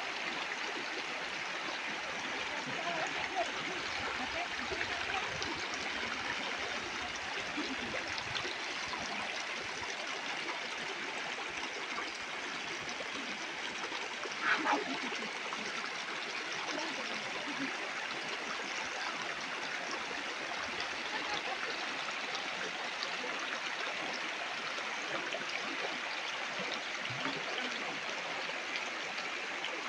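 Shallow river water rushing steadily over rocks and a low rocky step. About halfway through there is one brief sharper sound, louder than the water.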